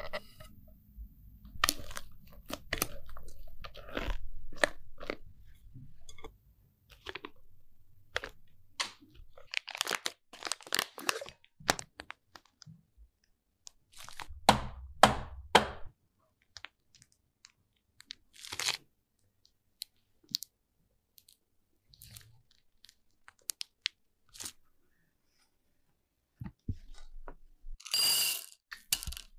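Close-up food-preparation sounds: soft wet squishing as cream is mixed and piped from a piping bag, with scattered light clicks and taps. Near the end, a short rattle as chocolate chips pour into a glass bowl.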